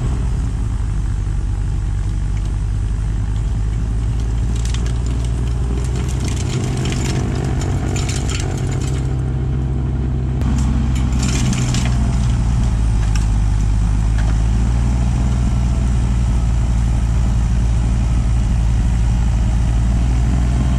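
A vehicle engine running steadily, with scattered crackling and crunching noises between about four and twelve seconds in; the engine grows slightly louder about ten seconds in.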